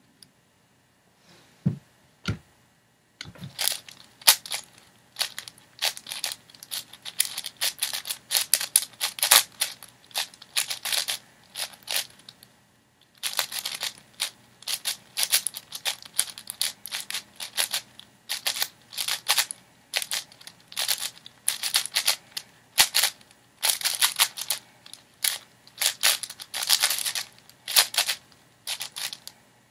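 A 6x6 speedcube being turned rapidly by hand: dense, fast clacking of layer turns that starts about three seconds in, with a short pause a little before halfway. A couple of single knocks come before the turning starts.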